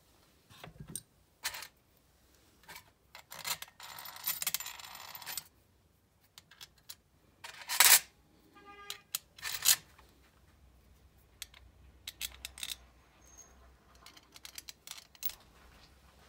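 Small steel screws and tools clinking and clicking against the carburetor's metal body and parts tray as the air-horn screws are set in place, with a couple of seconds of rattling around four seconds in. The loudest sound is a sharp metallic clink about eight seconds in that rings briefly.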